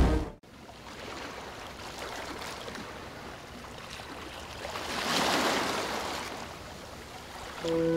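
Music cuts off just after the start, leaving a steady rush of water like surf, which swells once about five seconds in and eases off again. Music with held notes starts just before the end.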